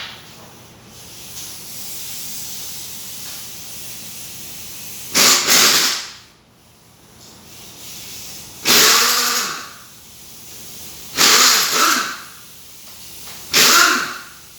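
Four short, loud hissing blasts of about a second each from a compressed-air blow gun, a few seconds apart.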